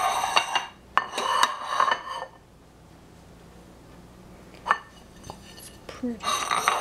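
Ceramic plates clattering and scraping against a tiled countertop as they are set down and shifted: two clattering stretches in the first couple of seconds, then two single clinks, and another clatter near the end.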